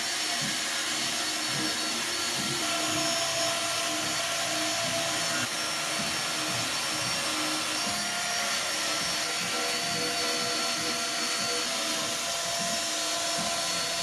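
Cordless drill spinning a wire brush wheel against stainless steel rack tubing, a steady hissing whir, as the metal is cleaned up.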